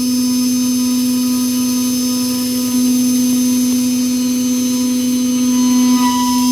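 CNC milling spindle spinning a small four-flute end mill at about 18,000 rpm while milling bronze: a steady machine whine over hiss. The higher ringing tones fade out at the start and come back near the end.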